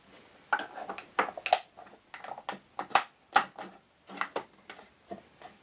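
Wooden box panels knocking and clicking against each other as they are pushed into their housing joints for a dry assembly: a string of irregular light wooden knocks, about a dozen.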